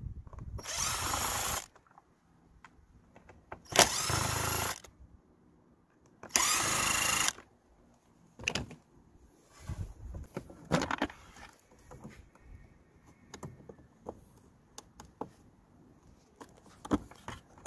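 Cordless power driver runs in three short bursts of about a second each, backing out the screws of a plastic air filter housing lid. Afterwards there are light clicks and rattles as the plastic lid and air filter are handled.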